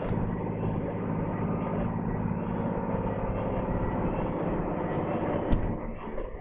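A loaded lorry's diesel engine running steadily, heard from inside the cab. A single sharp knock comes about five and a half seconds in, after which the engine noise drops away.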